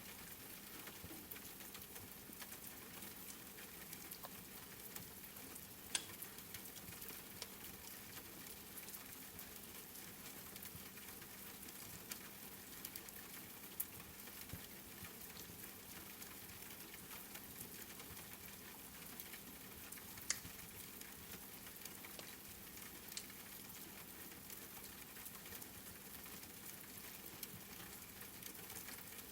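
Wood fire crackling and hissing steadily over soft rain, with a few sharp pops from the burning logs.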